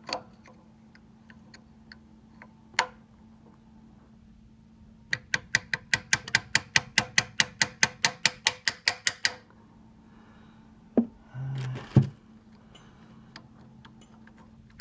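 A quick run of light metallic clicks, about seven a second for roughly four seconds, from a hand tool working on the lathe's metal feed-gear parts. Single clicks and knocks of the metal parts being handled come before and after, the loudest a sharp knock near the end.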